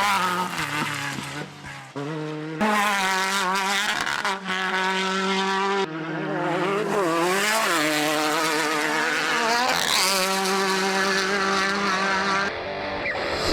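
Off-road race vehicle engines running and revving hard, the pitch dipping and climbing, with abrupt changes in the sound a few times as the shots change.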